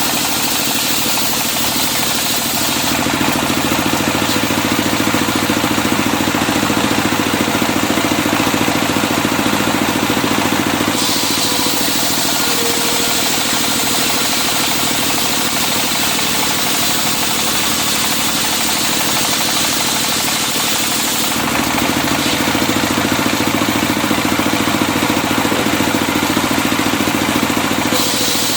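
Engine-driven circular sawmill running steadily, with a continuous engine drone whose brighter upper part shifts every several seconds.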